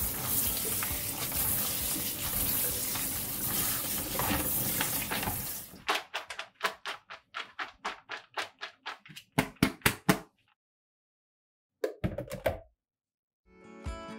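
Tap water running steadily into a plastic colander as shredded dried squid is rinsed and worked by hand. About six seconds in the water stops and gives way to a quick run of short knocks and rattles, about three or four a second, as the colander is shaken to drain.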